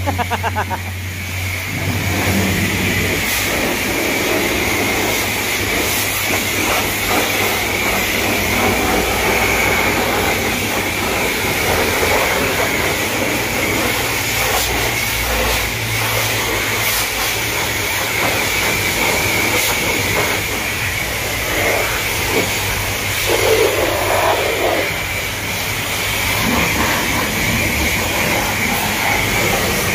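High-pressure wash wand at a self-serve car wash spraying water onto a car's bodywork and wheel: a steady hiss of spray.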